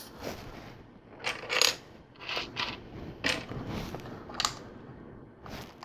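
Plastic LEGO pieces clicking and clattering as they are picked out of a pile and pressed into place: a string of irregular sharp clicks, eight or so.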